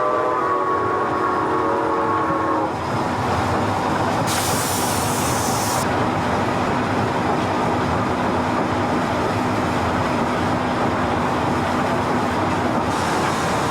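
Milwaukee Road 261, a 4-8-4 Northern steam locomotive, finishes a long chime whistle blast that cuts off about three seconds in. After that comes the steady heavy rumble of the running engine, with a brief burst of hiss a little later.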